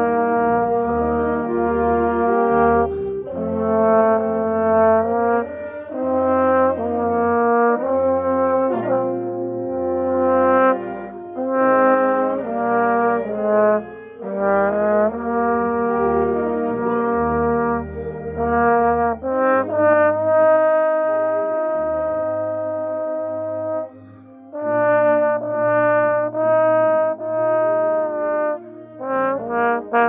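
Trombone played close up, holding sustained notes and moving through a melodic line, with other band instruments sounding around it. There is a brief gap in the playing near the end.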